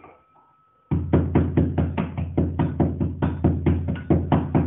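A pestle pounding black peppercorns in a small steel cup: a fast, even run of knocks, about six a second, starting about a second in.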